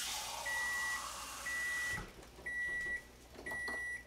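Electronic appliance beeping: a steady high beep about half a second long, repeating about once a second, four times. Tap water runs into the sink for the first two seconds.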